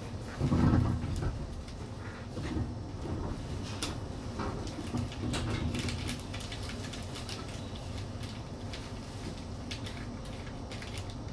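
Interior of an E721-series electric train car standing at a station stop: a steady low hum with scattered clicks and light knocks. A louder bump comes about half a second in.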